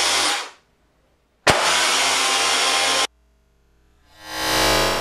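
Two Harbor Freight 12-volt compact tire compressors running together to fill the HydroCannon's air bladder, a steady mechanical buzz. The buzz fades out, comes back in with a click about a second and a half in, and cuts off abruptly about three seconds in; near the end a louder sound swells up and fades.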